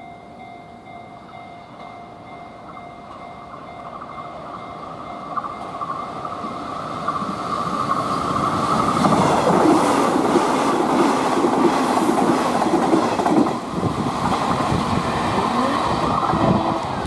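Hanshin electric commuter train approaching and passing close by, growing steadily louder over the first half, its wheels clattering over rail joints with a dense run of clicks at the loudest part. A steady alarm tone, typical of a level-crossing warning, sounds under the early approach.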